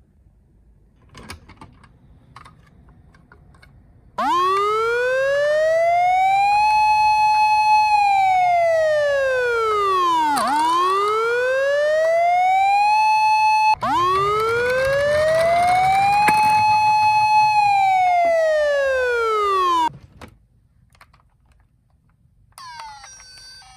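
Electronic wail siren of a toy ambulance, starting about four seconds in. It sweeps up in pitch, holds, and sweeps back down, in slow cycles of several seconds. It breaks off briefly partway through, restarts, and cuts off suddenly near the end. Faint clicks come before it, and a different stepped electronic beeping starts just before the end.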